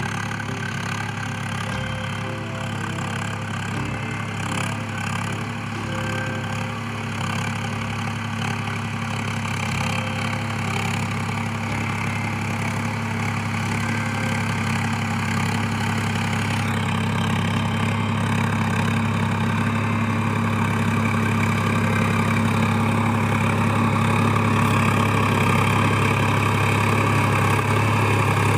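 Tractor engine running steadily at idle, growing gradually louder.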